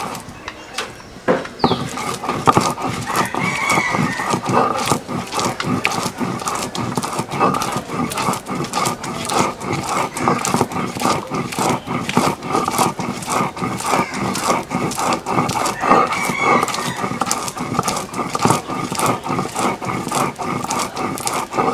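Stone roller worked back and forth on a flat stone grinding slab (shil-nora) to mash raw fish flesh: rapid, rhythmic knocking and scraping of stone on stone. Near the end the fish flesh is scraped off the skin with a hand tool.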